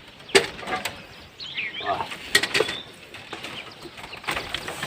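Birds chirping in short calls, mixed with several sharp clicks or knocks, the loudest about a third of a second in and another about two and a half seconds in.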